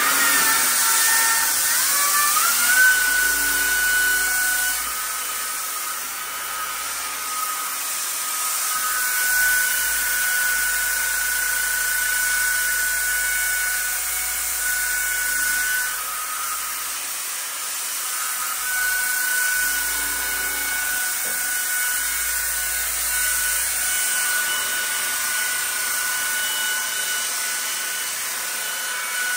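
Variable-speed sander with a diamond sanding pad wet-sanding a small chip out of a porcelain tub. The motor's high whine rises in pitch as it spins up a couple of seconds in, then runs steadily, shifting between two slightly different pitches several times.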